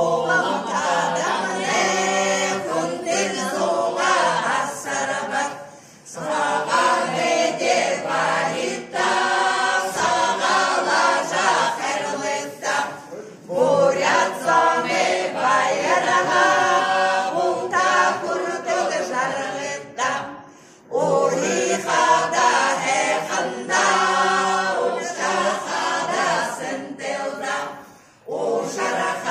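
A group of women singing a welcome song together, unaccompanied, in sung phrases with short breaks about every seven seconds.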